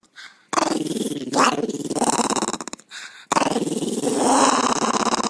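A small fluffy white dog vocalizing in two long, rough, drawn-out stretches of about two seconds each, with a brief pause between them.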